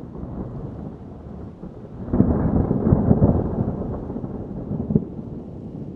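Thunder rolling across the sky in a long, rippling rumble that swells to its loudest about two seconds in and slowly dies away, with a short sharper crackle near the end.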